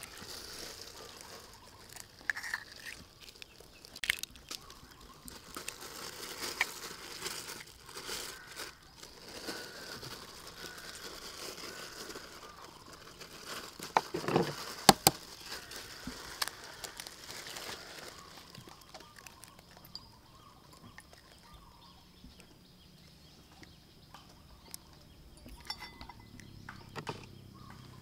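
Small clicks, taps and crackles of eggshells being cracked and handled while eggs are separated over a bowl, with a few louder sharp knocks about halfway through.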